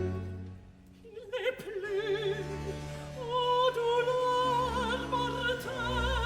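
Baroque opera music: a held chord with low notes dies away, and after a brief hush a solo voice enters singing with wide vibrato over sustained low accompaniment.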